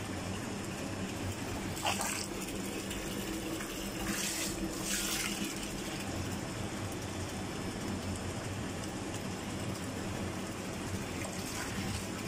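Caustic cleaning solution pouring steadily from the permeate and reject return hoses into a reverse osmosis unit's clean-in-place tank, over the steady hum of the circulation pump. Brief louder splashes come about two seconds in and again around four to five seconds in.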